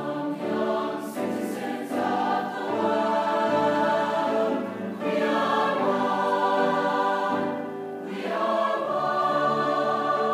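High school choir singing held notes in phrases, with short breaks about five and eight seconds in.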